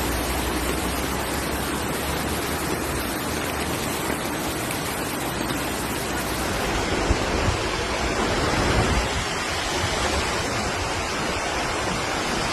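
Steady rush of running floodwater and rain, with a low rumble underneath; the sound shifts slightly about seven seconds in.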